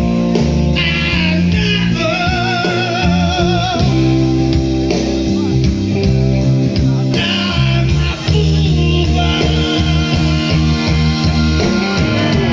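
Live rock band playing, with guitar over a steady bass line and a held wavering note about two seconds in.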